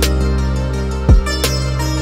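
Background music: sustained tones with a deep, falling bass drum hit at the start and another about a second in.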